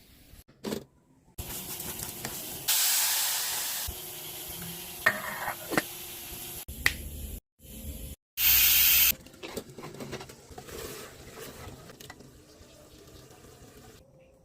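Cooking in a pan, in short cut-together clips: hissing and sizzling with some running or splashing water, loudest in two bursts of hiss about three seconds in and again near nine seconds.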